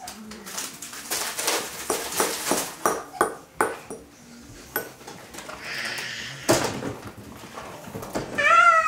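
A spoon clinking and scraping against a glass bowl of spaghetti as a toddler handles it, with a louder knock about six and a half seconds in. Near the end the toddler starts a high-pitched squeal that falls in pitch.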